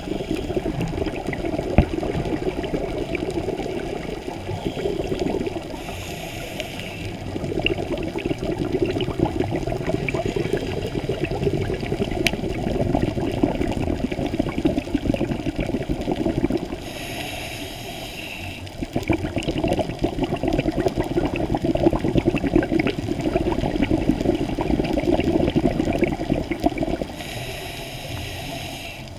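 A scuba diver's regulator breathing underwater: long rushes of exhaled bubbles crackling and gurgling, broken three times, about every ten to eleven seconds, by a short hiss of inhalation.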